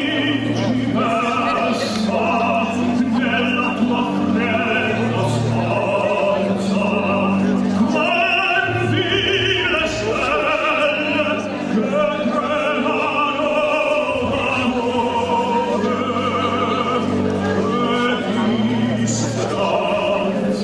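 Operatic singing with orchestral accompaniment: a voice holds long notes with vibrato over a steady low bass line.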